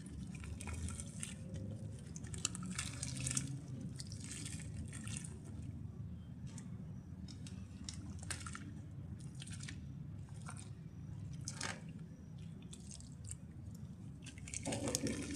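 Grainy brown mud crumbling apart in water, with irregular small crackles and drips over a steady low rumble.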